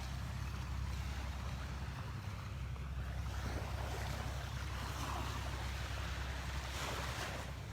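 Surf washing up on a sandy beach, swelling for a few seconds in the middle, with wind buffeting the microphone as a constant low rumble.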